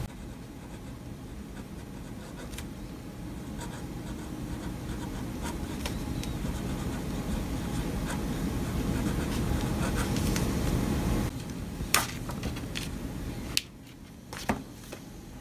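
Pen scratching across grid notebook paper as someone writes, over a steady low hum. The writing grows louder, then stops about eleven seconds in, followed by a few sharp clicks as the pen touches down.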